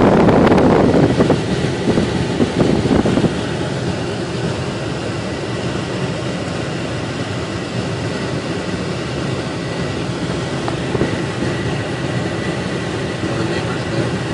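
Pickup truck driving, a steady rumble of engine and road noise, louder and rougher for the first three seconds or so.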